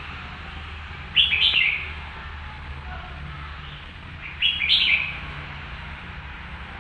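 A wild bird calling twice, about three seconds apart, each call a short burst of rapid high chirps lasting under a second.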